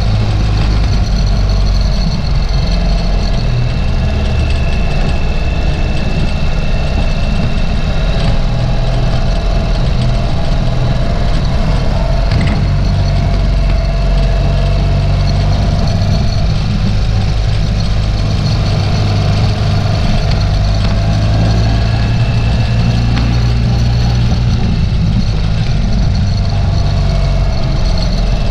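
Ural sidecar motorcycle's boxer-twin engine running steadily as the rig rides along, a low, even rumble.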